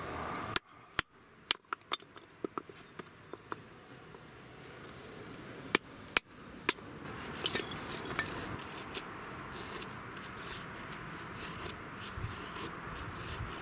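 Wooden mallet knocking on the back of a blade to split a stick into kindling: a quick run of sharp knocks in the first few seconds and two more about six seconds in. After that, a knife shaving wood into feather sticks, a steady scraping with small ticks.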